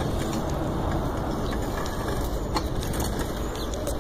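Wind rushing over a handheld phone's microphone during a bicycle ride, a steady low rumble with a few light clicks and rattles.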